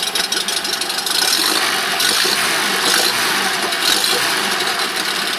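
Honda BF6 four-stroke outboard motor running steadily, a little louder from about a second in.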